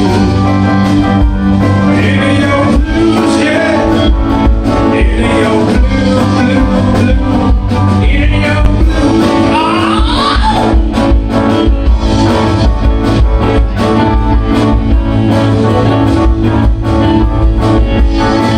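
Live rock band playing at full volume: electric guitar over bass and a steady drum beat, with a lead line bending in pitch in the middle.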